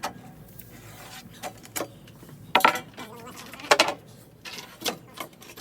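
A series of separate knocks and clatters of tools and wood being handled on a workbench, about seven sharp hits, the loudest a little past halfway through.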